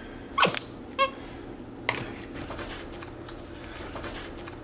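A capuchin monkey gives two short calls, the first falling in pitch and the second a brief high chirp, followed by a single sharp click just before two seconds; after that only a faint steady room hum.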